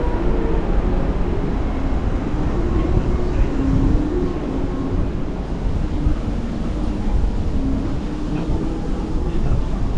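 Wind buffeting a phone microphone on an open ship deck: a steady low rumble, with faint snatches of distant voices.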